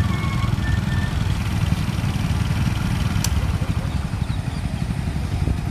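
Steady low engine rumble from a slow-moving Plasser track maintenance machine passing and motorcycles idling close by, with one sharp click about three seconds in.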